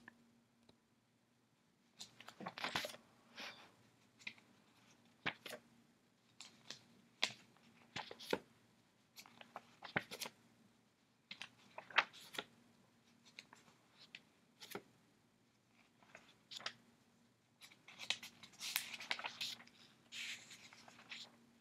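Paper pages of a thick anthology being leafed through and handled: soft, irregular crisp rustles and crackles, busiest about two to three seconds in and again near the end, over a faint steady hum.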